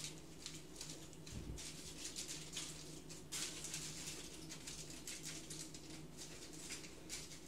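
Aluminium foil crinkling and rustling in short, irregular crackles as it is folded and pressed around the rim of a baking dish to seal it, over a faint steady low hum.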